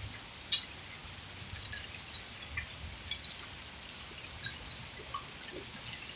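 Rain and hail falling in a steady hiss, with scattered irregular ticks of hailstones and drops striking hard surfaces and one sharper strike about half a second in.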